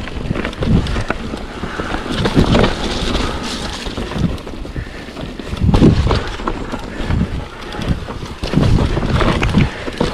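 Mountain bike descending a dirt trail: tyres rolling over the ground, with short knocks and rattles from the bike over bumps, under heavy wind buffeting on the microphone.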